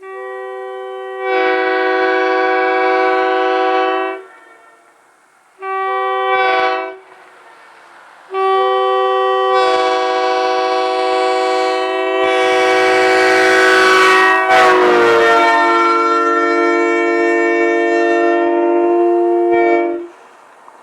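Leslie S3K three-chime locomotive air horn blown in three blasts: one of about four seconds that swells a moment after it starts, a brief toot, then a long blast of about twelve seconds. The chord dips in pitch partway through the long blast.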